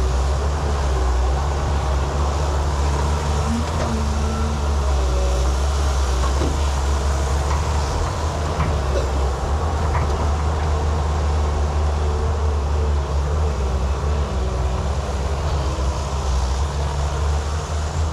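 JCB excavator's diesel engine running steadily under load, a deep continuous drone with faint brief whines coming and going above it.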